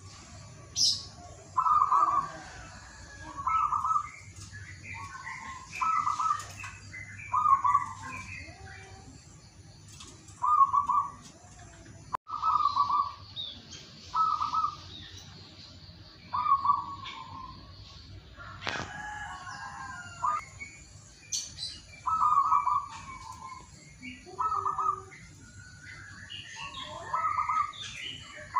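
Zebra dove (perkutut) cooing: short bursts of rolling coo notes repeated every second or two. Fainter, higher chirps from small birds come in between.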